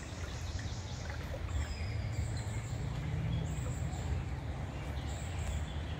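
Steady low rumble with a soft hiss of open-air background noise, without distinct splashes.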